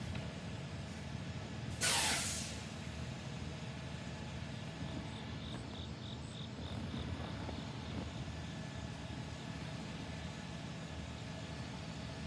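School bus air brakes releasing a single sharp hiss about two seconds in, over the low steady rumble of idling engines.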